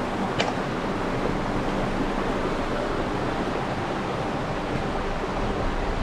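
Shallow river rapids rushing over rocks: a steady rush of water, with one short click about half a second in.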